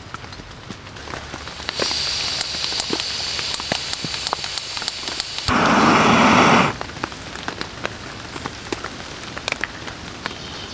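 Small canister gas camping stove: gas hissing steadily from the opened valve, then a loud whoosh lasting about a second as the burner lights. After that the sound drops to a low level with scattered small taps and clicks.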